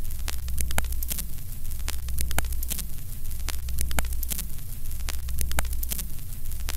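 Old-film countdown sound effect: a steady low hum under scratchy crackle and scattered pops, with a louder click about every one and a half seconds.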